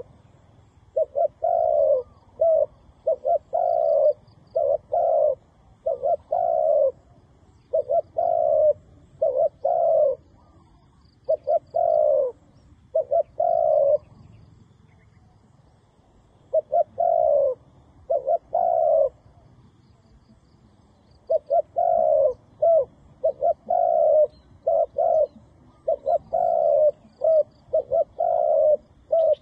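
A dove cooing: short, loud coo notes repeated in runs of several notes, roughly two a second, with pauses of a couple of seconds between runs.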